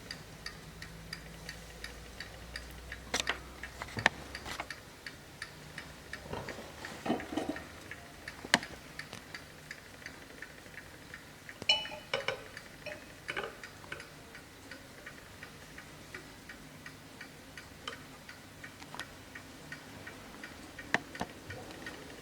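Hermle mechanical mantel clock ticking steadily, with a few louder clicks and knocks along the way, one of them with a brief ring.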